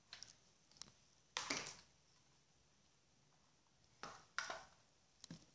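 A few short knocks and clatters of hands handling machine parts, spaced irregularly and loudest about one and a half seconds in.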